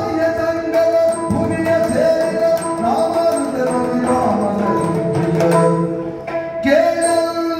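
Yakshagana accompaniment: a male singer's drawn-out sung verse over a steady drone, with hand strokes on a maddale barrel drum and short, bright small-cymbal rings keeping time.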